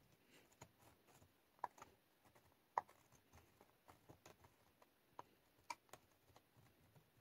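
Faint, irregular light ticks of a pen tip tracing letters through a plastic stencil onto paper, about ten over several seconds, the loudest near the middle, with near silence between.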